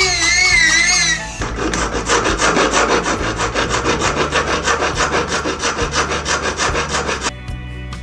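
Rapid, even back-and-forth strokes of a hand tool working a silver ring band, about four to five strokes a second, stopping near the end. A wavering high tone sounds for about the first second, and soft background music runs underneath.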